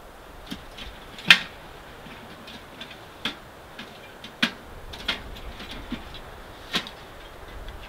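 Irregular clicks and knocks of camping gear being handled and unpacked from a storage box, the loudest about a second in, over a steady background rush.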